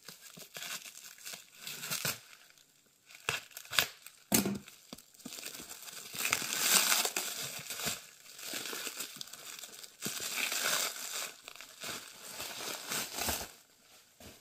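Clear plastic wrap being cut and pulled off a bundle of books, crinkling and crackling in uneven bursts, with a few sharp clicks about three to four seconds in.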